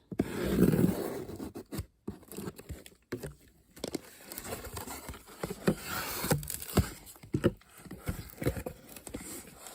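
A mystery box being opened by hand: packaging tearing, rustling and crinkling, with scattered taps and scrapes. The loudest part is a noisy rip or rustle in about the first second and a half.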